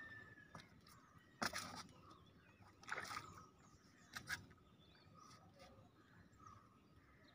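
Near silence, broken by a few faint knocks and scuffs from a wooden rowing boat drifting against the bank, about one and a half, three and four seconds in.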